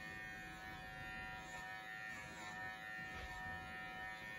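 VGR V-098 electric pet clipper running with a steady buzzing hum as it shears a long-haired cat's coat.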